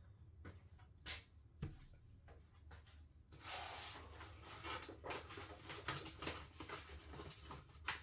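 A few faint knocks and clicks, then from about three seconds in a rustling, scraping noise with many small taps: tools and materials being handled on a workbench.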